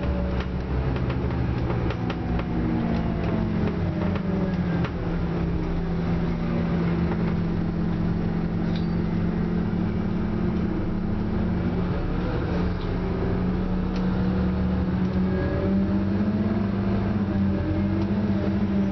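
Scania Omnicity single-deck bus running along, heard from inside the passenger saloon. The engine and driveline hum steadily, and their pitch rises and falls a few times as the bus speeds up and slows, with light rattles from the body.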